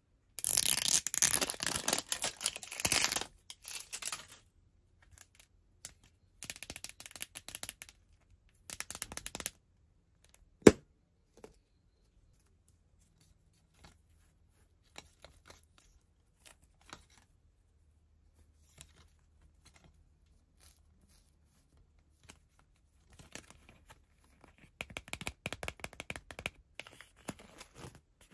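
Plastic packaging crinkling and tearing as a blind-box capsule is unwrapped and opened by hand. There is one sharp click about ten seconds in, then quieter handling, and more crinkling near the end.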